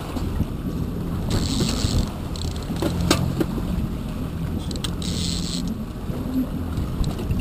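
Boat engine running steadily at low trolling speed, with wind on the microphone and water noise. Two short hissing bursts come about a second and a half in and again about five seconds in, with a sharp click between them.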